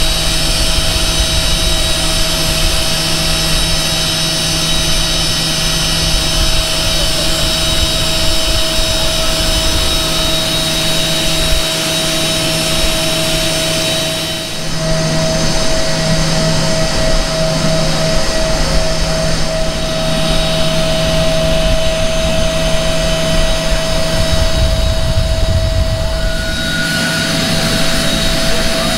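Dassault Falcon 900 business jet's turbofan engines running at idle on the ground: a steady high whine over a rumble, dipping briefly about halfway through.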